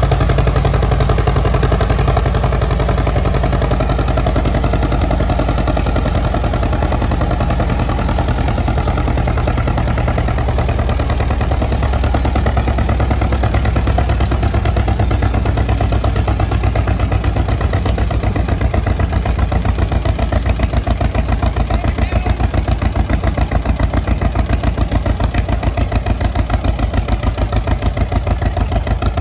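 Vintage tractor engine running with a heavy, low, evenly spaced exhaust beat that becomes more distinct in the second half.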